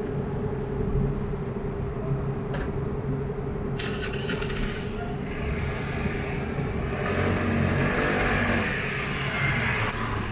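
Street traffic: a steady low rumble with a constant hum, and a louder hiss that builds from about four seconds in and is strongest near the end, as of a vehicle going past.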